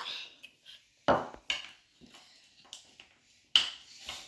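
Plastic Play-Doh tools and cutters being picked up and set down on a table: a handful of irregular sharp clicks and knocks.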